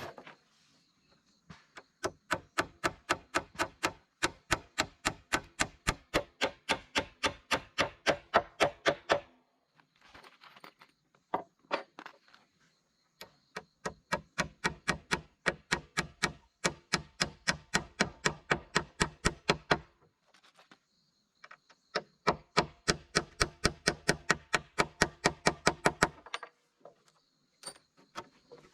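Rapid, evenly spaced tool blows on wood, about four a second, each with a short ringing tone. They come in three long runs with brief pauses between.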